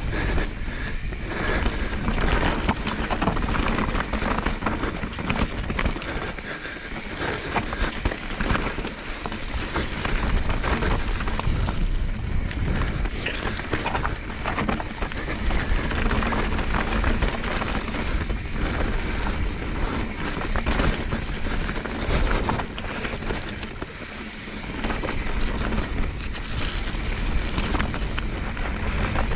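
Mountain bike descending a rocky, gravelly trail at speed: the tyres crunch and crackle over loose stones and the bike clatters over rocks, with wind rushing over the microphone.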